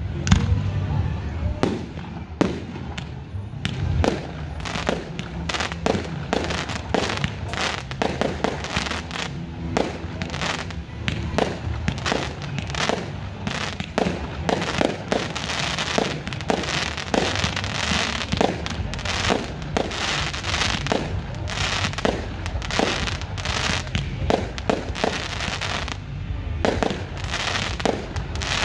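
Aerial fireworks display: a continuous barrage of shell bursts and crackles, several bangs a second.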